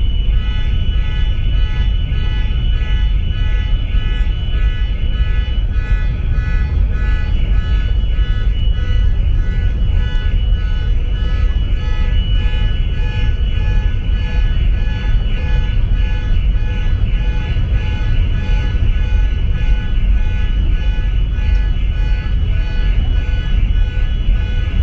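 Background music of held tones with a steady pulse, starting at the outset, over a loud low rumble from the moving ferry.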